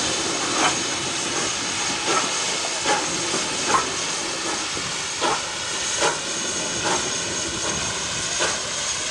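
Steam locomotive No. 520, a South Australian Railways 520-class streamlined 4-8-4, hissing steam steadily. The hiss is broken by short puffs at uneven intervals, roughly one a second.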